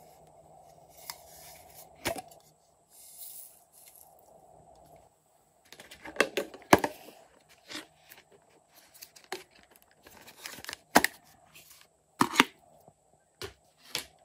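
Small plastic cases handled and opened by hand: a series of sharp plastic clicks and snaps, with rustling and scraping between them.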